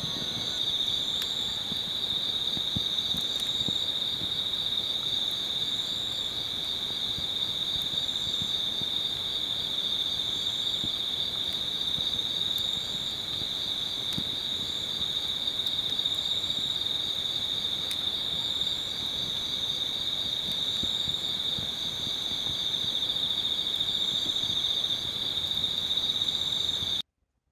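Crickets trilling in a steady, high-pitched chorus, with a fainter, higher call pulsing about every one and a half seconds. The sound cuts off abruptly near the end.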